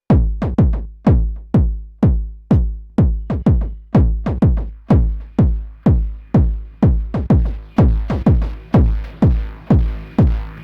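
Drum-machine techno beat at 125 BPM from a Roland TR-8: a deep kick drum on every beat, about two a second, with a few softer hits in between and a low held synth tone underneath. A hissing noise layer builds in from about halfway through.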